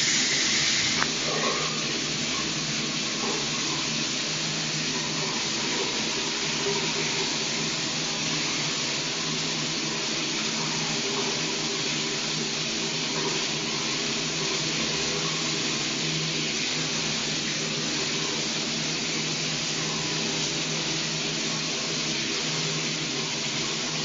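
Shower running: water spraying steadily from the shower head with an even, continuous hiss.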